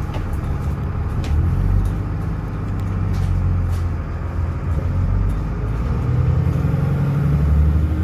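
Dennis Trident double-decker bus's diesel engine running under way, heard on board from the upper deck, its low note shifting and rising near the end, with scattered clicks and rattles from the cabin fittings.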